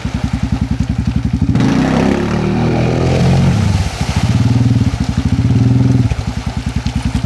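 Honda Rincon 680 ATV's single-cylinder engine revving hard in repeated bursts, its revs rising and falling several times, while the tyres spin and churn through deep mud and water with splashing.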